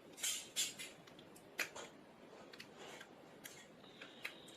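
Small repair tools clicking and scraping against a phone's plastic and metal parts during disassembly: a handful of short, sharp clicks and scrapes, the loudest in the first second.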